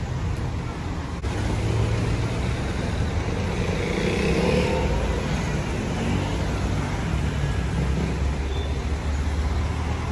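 Cars driving past close by on a town street, a steady engine and tyre rumble that swells loudest about four to five seconds in as one car goes by.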